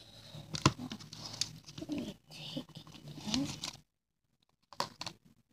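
Clear slime with rubber bands mixed in being squeezed and pulled by hand: irregular sticky clicks and crackling with a couple of short squeaks. The sound cuts out for nearly a second about four seconds in.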